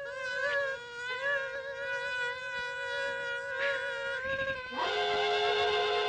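Cartoon sound effect of a swarm of insects buzzing: a nasal buzzing drone that wavers slightly in pitch. About five seconds in it shifts to a louder, slightly lower and steadier buzz with other tones layered over it.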